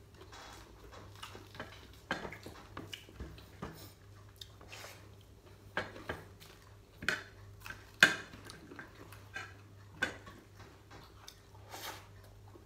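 Eating sounds of homemade fried chicken picked apart by hand and chewed: irregular sharp clicks and crunches with light clinks against a plate, the loudest about two, seven, eight and ten seconds in.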